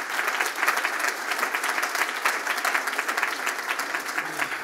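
Audience applauding, a dense, steady run of many hand claps.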